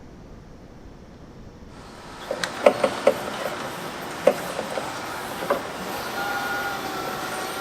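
Sawmill workshop noise: a run of sharp knocks and clatter, then a steady machine whine with two tones setting in about six seconds in.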